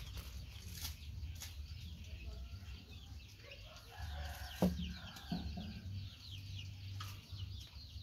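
Chickens clucking in the background, with many quick high chirps throughout, over a low steady hum. A single sharp knock comes about halfway through.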